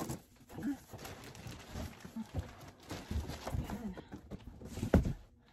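A cardboard box being opened and pulled off: a knife slitting packing tape, then cardboard scraping and knocking as the box is lifted, with a loud thump about five seconds in.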